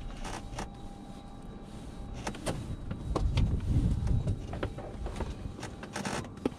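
Scattered clicks and knocks of cockpit switches and handling in a small aircraft's cabin with the engine stopped, with a muffled low rumble of movement around the middle and a faint steady electrical tone underneath.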